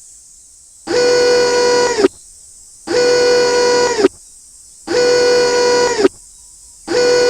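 A horn sounding in even, steady blasts, each about a second long and repeating every two seconds, four times over.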